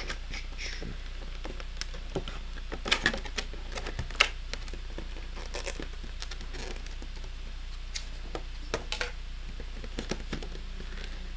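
Clear plastic blister packaging being handled and pried open by hand: irregular crinkles and clicks, with the sharpest snaps around three and four seconds in.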